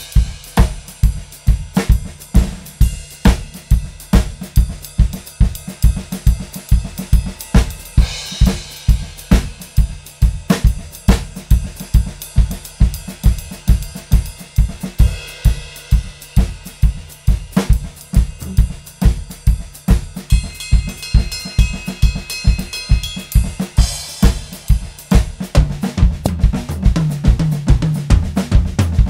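Acoustic drum kit played solo: a steady stream of bass drum and snare strokes, about three strong accents a second, with cymbal crashes every several seconds.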